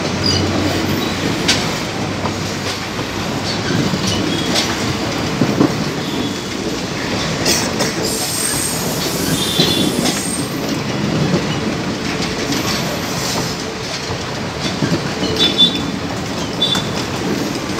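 Indian Railways passenger coaches rolling past close by: a steady rumble of steel wheels on rail with irregular clickety-clack over the rail joints. Brief high wheel squeals come around ten seconds in and again near the end.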